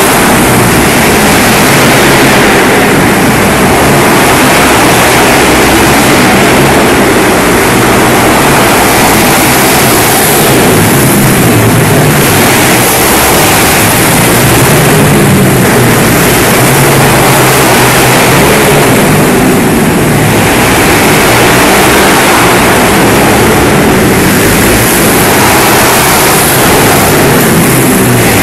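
A pack of pit bike engines racing flat out, loud and continuous, swelling and dipping every few seconds as the bikes brake, accelerate and pass.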